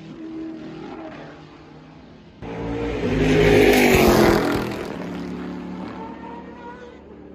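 Mazda Group C race car's four-rotor rotary engine running at high revs. It is faint at first, then jumps louder about two and a half seconds in and falls in pitch as the car passes by, then fades.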